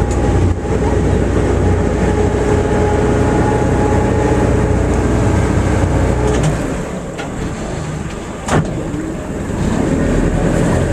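Tour boat's motor running steadily with a low rumble and a faint whine, easing off about six seconds in and picking up again near the end. A single sharp click near the end.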